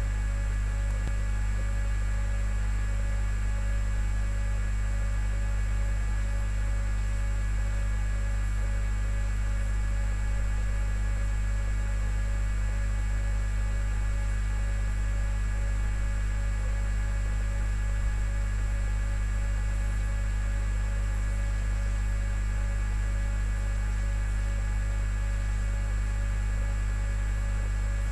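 A steady electrical hum: a loud, unchanging low drone with several fainter steady tones above it, including a faint pulsing tone in the middle and a thin high whine.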